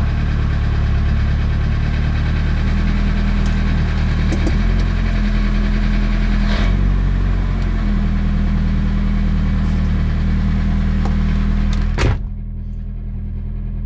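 Nissan Silvia S14 engine idling steadily, heard from inside the cabin. About twelve seconds in there is a sharp click, after which the sound is quieter and duller.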